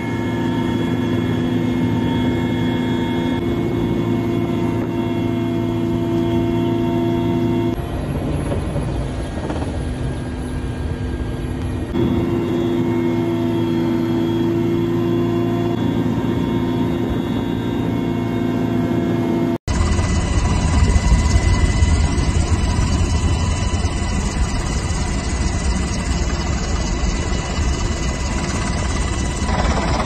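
Helicopter turbine engine and rotor running steadily, heard from on board, with a steady whine over a low drone. Just before two-thirds of the way through the sound cuts abruptly to a rougher, louder low rumble.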